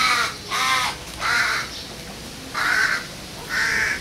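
A crow cawing five times: three caws about half a second apart, then two more spaced about a second apart.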